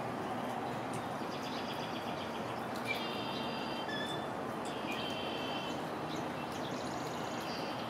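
Songbirds singing: one bird twice gives a short note followed by a buzzy phrase about a second long, two seconds apart, with fainter twittering from others, over a steady rushing background noise.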